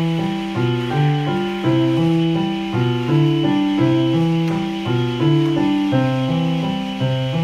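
Solo piano background music: an even rhythm of repeated low notes under a simple melody.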